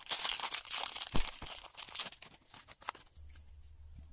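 Foil wrapper of a Pokémon TCG booster pack being torn open and crinkled: dense crackling for about two and a half seconds, with one sharper snap just over a second in, then only faint rustling.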